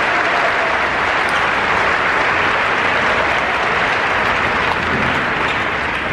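Arena crowd applauding: dense, steady clapping.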